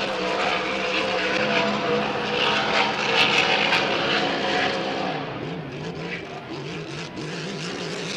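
A Grand Prix class racing hydroplane's V8 engine running at full throttle on a high-speed pass. The engine note is steady and loudest about three seconds in, and from about five seconds in its pitch wavers up and down.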